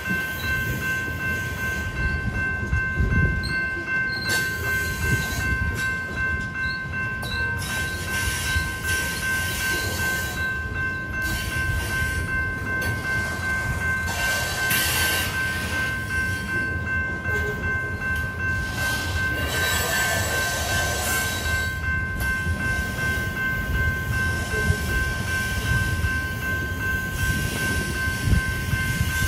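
Covered hopper cars of a freight train rolling over a grade crossing, with a continuous low rumble and irregular clacks of wheels over rail joints. Steady high ringing tones run throughout, from the crossing's electronic warning bell.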